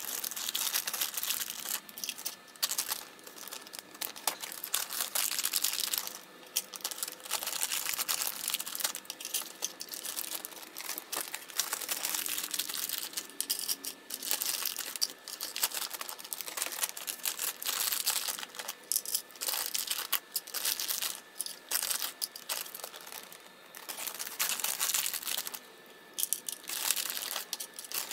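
Packaging crinkling and rustling as it is handled, in irregular bursts with short pauses.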